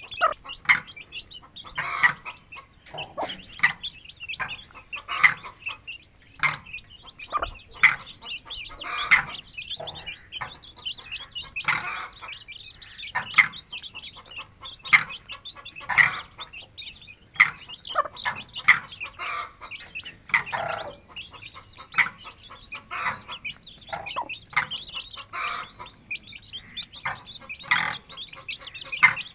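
Aseel hen clucking and her chicks peeping as they feed, in a steady string of short calls.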